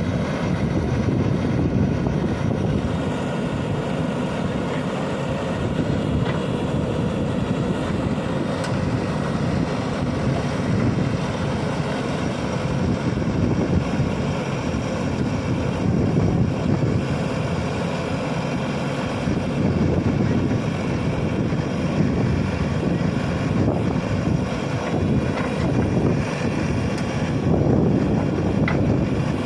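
JCB backhoe loader's diesel engine running under load, its level swelling and easing every few seconds as the machine works.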